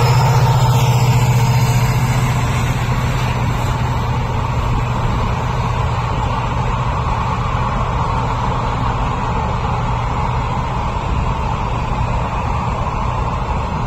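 Passenger express train running past: a low engine hum that fades over the first two seconds, under a steady rushing rumble of the train rolling by.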